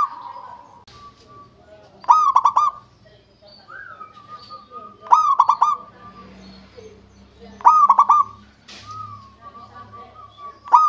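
Zebra dove (perkutut) cooing: a short phrase of rapid, trilled coo notes, repeated about every three seconds, with softer notes between.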